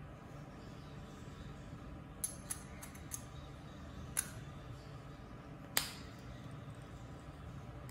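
A handful of small, sharp metallic clicks as the caseback of a vintage Seikomatic 8305B is handled and seated onto the watch case. Three or four come quickly together a couple of seconds in, one more follows about four seconds in, and the sharpest comes near six seconds, with a brief ring. A low, steady hum lies underneath.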